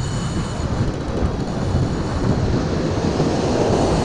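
Wind rumbling on the microphone over surf breaking on the beach: a steady, dense noise with no clear breaks.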